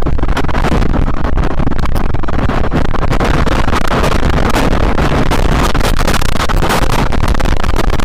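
Loud, steady tornado wind heard from inside a car by its dashcam, with a constant clatter of sharp hits from debris and rain striking the car.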